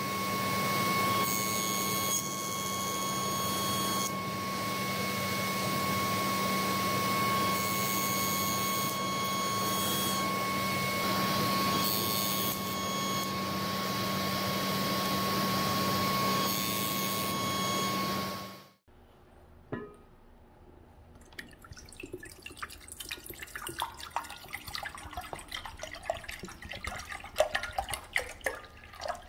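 Table saw running steadily with a hum, its blade cutting into a thin wooden workpiece several times; the sound cuts off abruptly about two-thirds of the way in. After that, water is poured from a plastic bottle into a pot, splashing and trickling.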